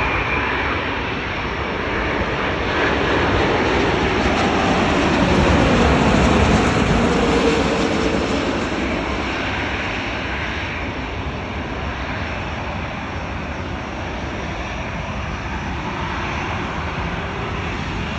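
Jet engine noise of an Airbus A330-900neo with Rolls-Royce Trent 7000 engines passing, a steady roar that swells to its loudest about six seconds in and then slowly eases off.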